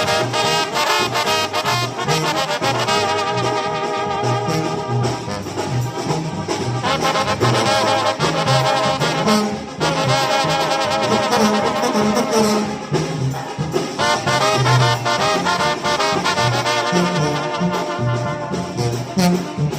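Mexican banda music led by its trombone section, playing sustained, wavering melody notes over a stepping low bass line and a steady percussion beat.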